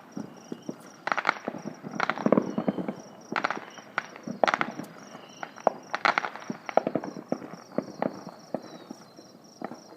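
Fireworks going off: an irregular run of bangs and crackling pops, roughly one burst a second, many of them quick clusters of several cracks.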